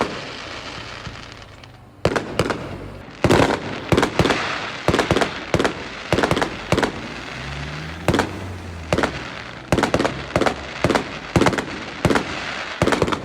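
Fireworks going off: a dense, rapid run of aerial bangs with crackling between them, picking up about two seconds in after a fading crackle.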